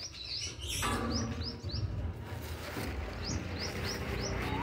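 Small birds chirping: short, high, rising chirps in quick runs of three or four, repeated. A brief burst of noise about a second in.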